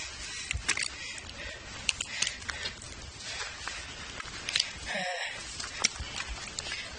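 Footsteps and trekking-pole taps on rocky ground, with camera handling rustle: a string of irregular clicks, knocks and scrapes.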